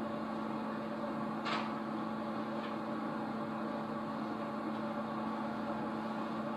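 Steady electrical hum with hiss from an old videotape recording. A short soft swish comes about a second and a half in, and a fainter one about a second later.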